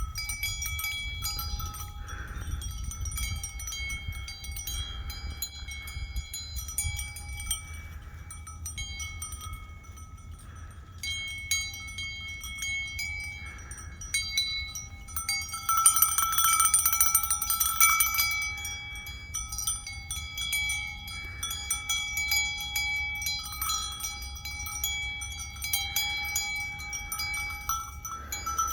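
Metal bells ringing and jingling without a break, several steady tones with many small clinking strikes. They get louder and busier for a couple of seconds in the middle.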